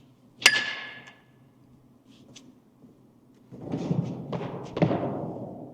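A sharp metallic clank that rings briefly, then, about three and a half seconds in, a couple of seconds of rough scraping and rumbling with another knock in the middle.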